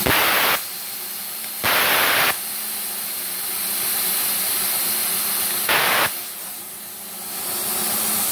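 Compressed air blasting from a plasma cutter torch in three short bursts as the trigger is pressed, over a steady hiss of air.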